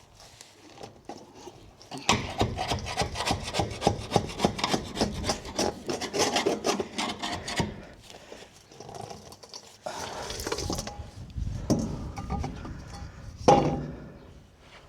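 Hand scraping against a boat's steel deck in quick rasping strokes, scraping back old debris. The scraping runs hard from about two seconds in to just before the eight-second mark, then comes in shorter, quieter bouts with a louder knock near the end.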